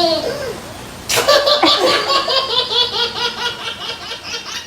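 Laughter sound effect: after a short falling tone, a laugh starts suddenly about a second in, in quick rhythmic bursts, and fades away.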